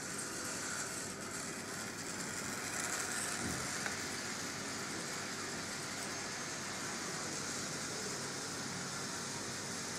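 A Rivarossi D245 model diesel locomotive running around its track, making a steady mechanical running noise, with a small click about four seconds in.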